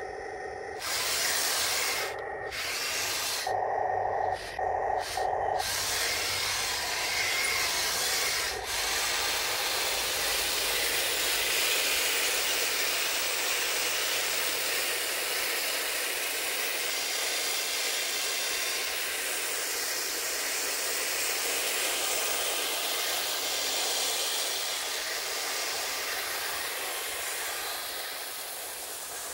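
RC model M41 Bulldog tank driving: its gear motors and tracks make a steady grinding rasp. Over the first few seconds it comes in short stop-start bursts, with the model's speaker humming in the gaps.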